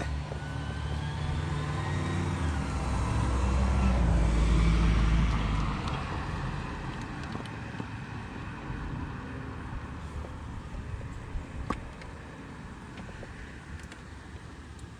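A motor vehicle passing by, its engine growing louder to a peak about four to five seconds in and then fading away. A single sharp click sounds near the end.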